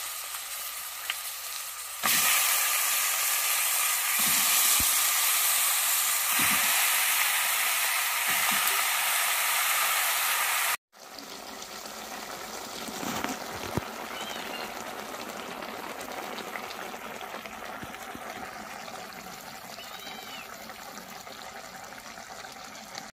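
Pieces of meat frying in hot oil in a metal pot, with a steady sizzle. The sizzle gets much louder about two seconds in, breaks off at a cut about halfway, then carries on more quietly.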